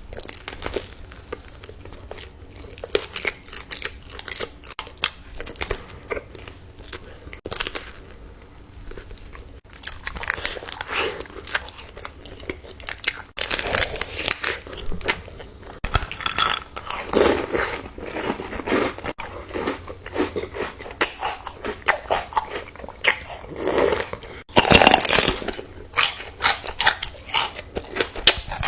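Close-up chewing and biting of crunchy food, mukbang-style: a long run of crisp crunches and crackles. They come sparsely at first and grow denser and louder from about a third of the way in, with the loudest bites near the end.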